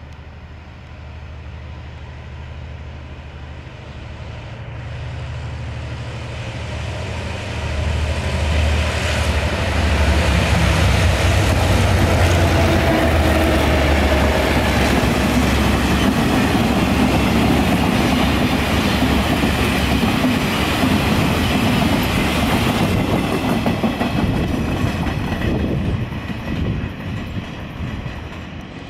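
Freight train hauled by Taiwan Railways R100-class diesel-electric locomotives passing close by. The locomotives' engine hum builds to a loud peak about ten seconds in, then the wagons' wheels clatter rhythmically over the rail joints, fading near the end.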